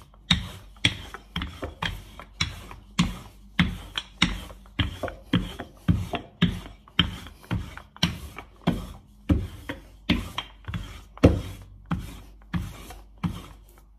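Wooden handled rolling pin rolling pastry dough thin on a stone countertop, knocking about twice a second as it is pushed back and forth.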